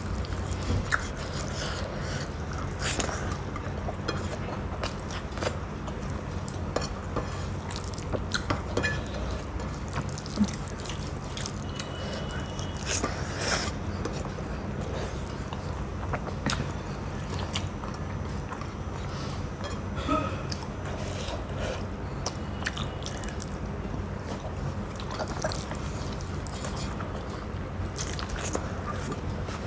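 A person eating rice and curry with their hands: wet chewing and mouth smacks, with short clicks at irregular moments. A steady low hum runs underneath.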